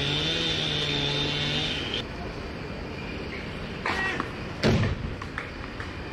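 Background music that cuts off abruptly about two seconds in, giving way to open-court sound from a doubles point: a sharp racket-on-ball hit, the loudest sound, a little past the middle, then a few light clicks.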